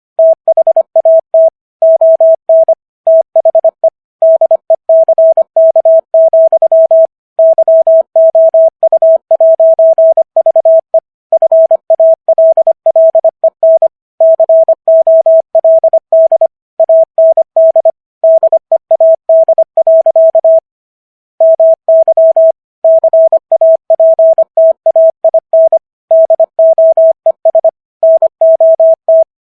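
Morse code sent at 25 words per minute: a single steady beep tone keyed on and off in quick dots and dashes, with short gaps between letters and longer ones between words.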